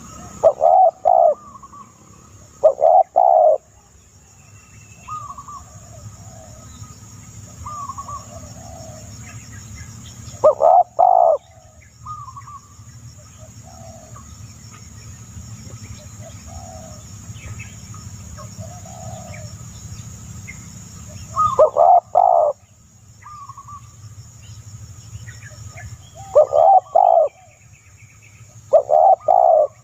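Birds calling: a loud call of two or three quick notes, repeated six times at uneven gaps, with softer scattered bird calls between.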